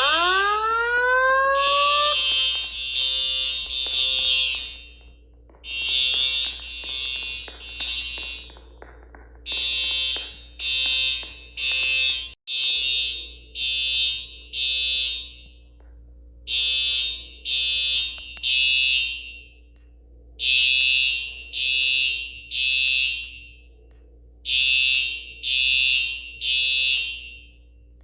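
Fire alarm horns sounding the temporal-three evacuation signal: groups of three short, shrill blasts separated by pauses. It opens with a rising whoop tone lasting about two seconds.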